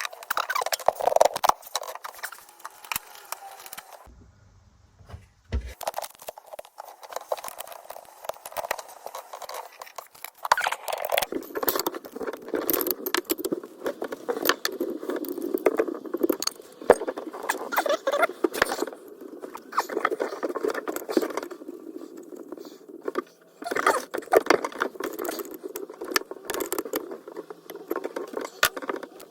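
Irregular clicks, taps and rattling of hand tools and metal fittings being handled during angle-stop valve replacement, with a scraping, rustling undertone and a brief pause about four seconds in.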